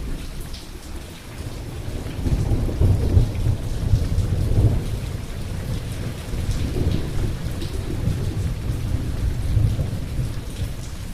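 Steady rain with rolling thunder. The low rumble builds about two seconds in, is strongest around four to five seconds, and swells again near the end.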